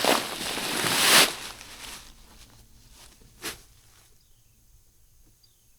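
Pea gravel poured into a half-barrel forge: a loud rattling pour that builds for about a second and dies away within two, then one short clatter about three and a half seconds in.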